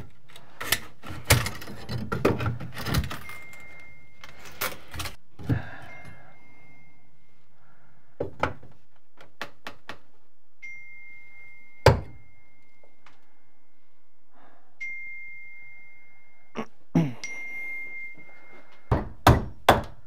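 Pry bar and hammer knocking and prying at old wooden closet framing: scattered knocks and thunks, most of them in the first few seconds and near the end, with one loud sharp strike a little past the middle. A faint, steady high whine comes and goes in between.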